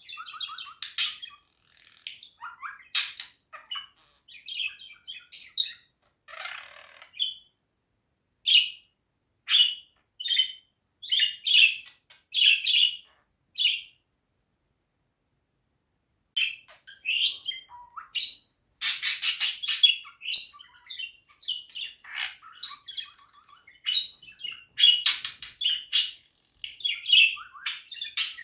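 Budgerigar warbling: a quick run of chirps, clicks and chatter that breaks off for about two seconds midway, then resumes with a dense, loud run of clicking.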